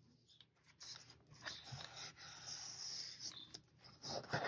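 Faint paper rustling: a cardstock cut-out rubbed and slid against a journal page. It is a steady rasp for a couple of seconds, with a few louder scuffs near the end.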